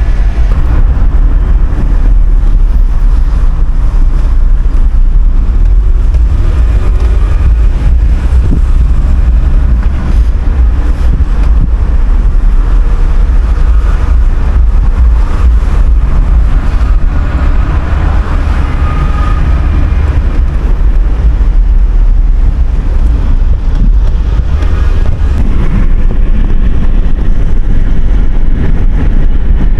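Car driving on the road: a loud, steady low rumble of road and engine noise, with wind buffeting the microphone.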